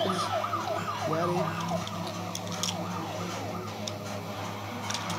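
Siren sounding in quick repeated falling sweeps, about three a second, fading out about four seconds in. A few light clicks, as of plastic building blocks being handled, come near the middle and near the end.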